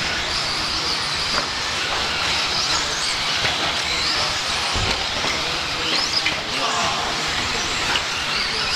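Electric 1/10-scale 2WD RC buggies racing on a dirt track: a steady high whine of their motors that rises and falls as they accelerate and brake, over a hiss of tyres on the dirt.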